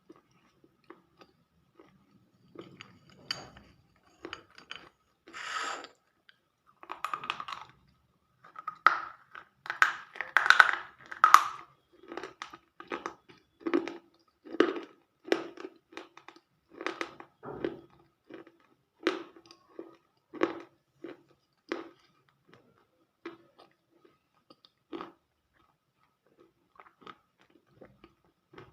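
Close-up chewing with crisp crunches, one bite or chew about every second, loudest and thickest in the middle and thinning out near the end.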